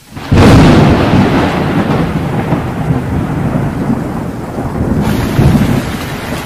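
A loud thunderclap breaks out about a third of a second in and rumbles on over steady rain. The thunder swells a second time near the end.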